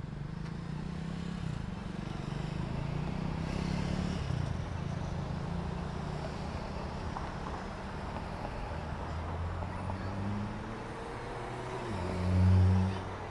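Motor traffic on a city street: a steady low rumble, with one louder low rumble that swells and fades near the end.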